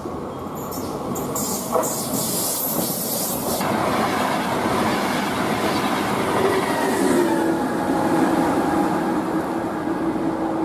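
ETR 500 Frecciarossa high-speed electric train running on the rails, a rushing noise that grows steadily louder, with a few clicks about two seconds in and a steady whine joining from about halfway.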